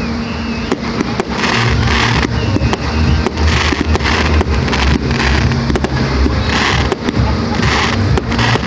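Aerial fireworks bursting in quick succession, with many sharp pops and rapid crackling over a heavy low rumble that sets in about a second and a half in.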